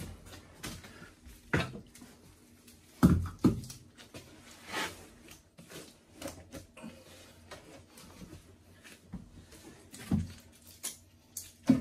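Scattered knocks and clunks as the steel face plate and pipe extraction cage of a pipe bursting machine, and the broken clay pipe inside the cage, are handled. The loudest are a pair of knocks about three seconds in, with another near the end.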